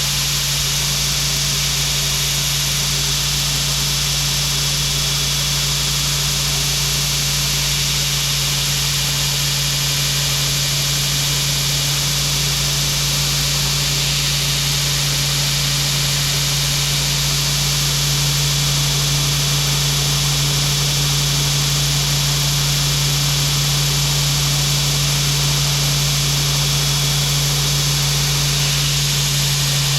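Belt grinder running steadily with a constant motor hum and sanding hiss, getting slightly louder about two-thirds of the way through.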